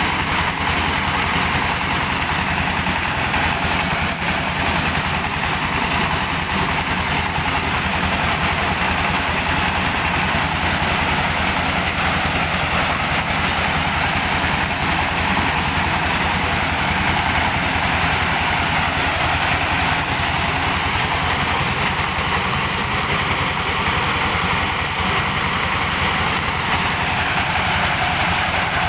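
Diesel-driven mobile corn sheller running steadily under load. The engine runs evenly beneath the dense rattle of the threshing drum as cobs are fed in and shelled kernels pour out of the chute.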